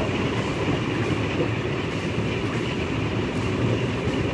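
DR class 50 2-10-0 steam locomotive running along the line, heard from its cab: a steady rumble of running gear and wheels on the rails.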